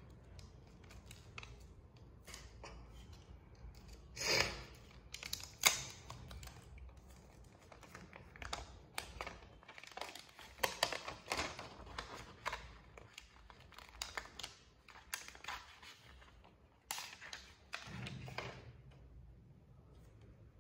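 Protective film and paper wrap being peeled off the back of a new Nothing Phone (2a): a run of crinkles, small rips and clicks as it is handled. There is a louder rip about four seconds in and a sharp click a second later.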